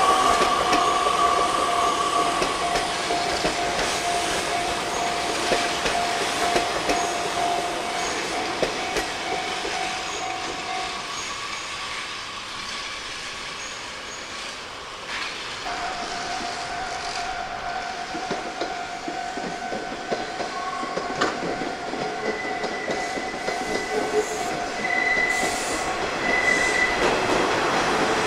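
Nishitetsu electric train running past on the Tenjin-Ōmuta Line while the level crossing's warning bell rings. The bell stops as the train clears, and a little past halfway it starts ringing again for the next train.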